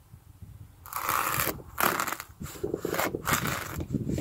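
Cheap folding knife cutting down through a foam pool noodle onto a plastic cutting board: a series of short cutting strokes beginning about a second in, the poorly sharpened edge tearing the foam rather than slicing it cleanly.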